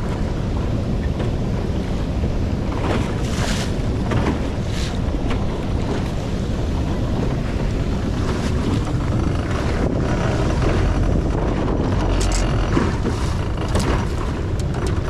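Wind buffeting the microphone, with water moving against the boat. A few short sharp sounds stand out about three to five seconds in and again near the end.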